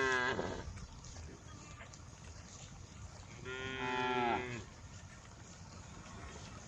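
Cows mooing: one moo tails off at the start, then a second moo about a second long comes about three and a half seconds in.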